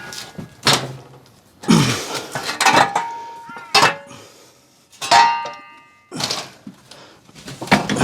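A washing machine's bottom panel being pulled back and worked loose: a series of irregular knocks and clatters, several with a short metallic ring.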